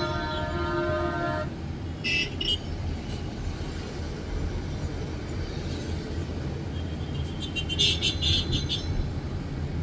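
City street traffic with a steady low rumble of engines and tyres; a car horn sounds for about a second and a half at the start. Short bursts of sharp high clicking come about two seconds in and again near the end.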